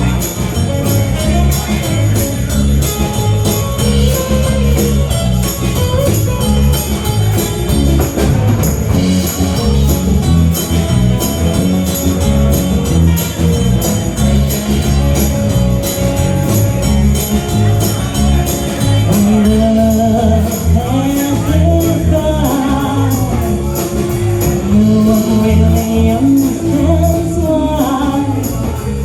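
A live band playing an instrumental break: bass and drums keep a steady beat with bright, jingly high percussion. A lead melody line with bending pitch comes in past the middle.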